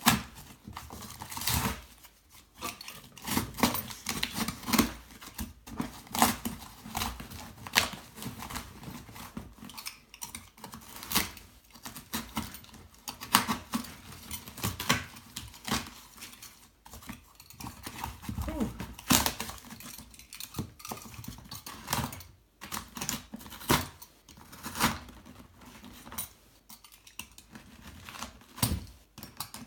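A corrugated cardboard shipping box being torn open by hand: irregular rips, scrapes and knocks of cardboard and packing tape, with short pauses between.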